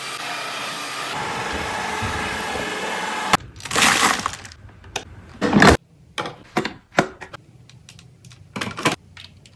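Cordless stick vacuum cleaner (Brex Iconic VC200) motor running steadily, cutting off about three seconds in. Irregular clicks and knocks follow, with two short, louder bursts of noise near the middle.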